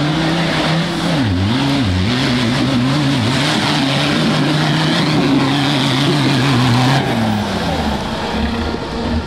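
Engine of a GAZ 69-based off-road trial special revving hard under load as it climbs a steep muddy slope. Its pitch dips and recovers several times in the first few seconds, then holds high until it eases off about seven seconds in.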